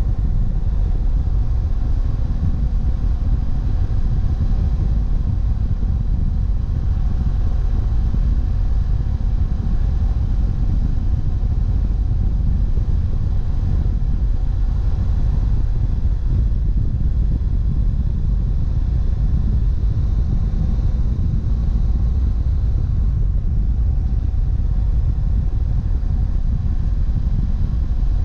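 BMW F700GS parallel-twin engine running steadily while riding at road speed, mixed with a steady low wind rumble on the action camera's microphone.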